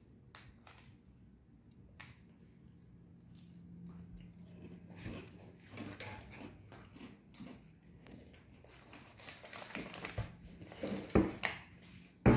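Crunchy chocolate cookies being bitten and chewed, with small clicks and rustles of handling throughout and a few sharp knocks about eleven seconds in.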